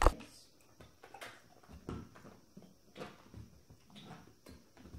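A sharp knock, then a dog's paws shifting and stepping on rubber balance pods and carpet, making soft, irregular taps and thumps.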